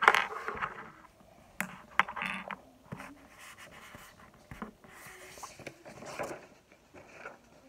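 Pen scratching on paper in short irregular strokes while drawing, with a few knocks and rustles of handling, the loudest right at the start.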